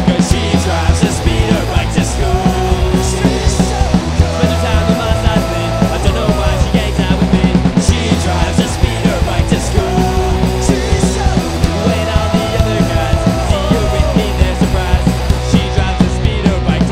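Loud rock music with a driving drum beat and held melodic lines.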